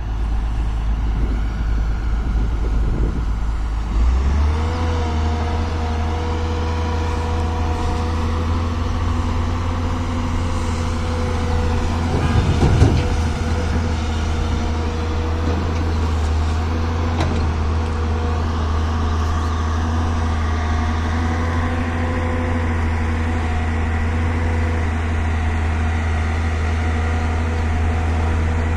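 Volvo EC380DL excavator's diesel engine and hydraulics running steadily under work. The engine note steps up about four seconds in, and there is a brief loud clatter about halfway through.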